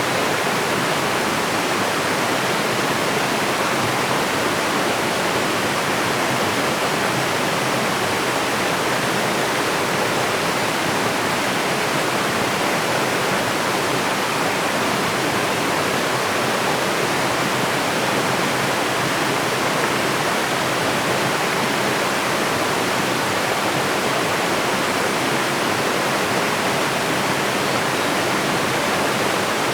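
Water pouring down a waterfall, a steady, even rush with no breaks.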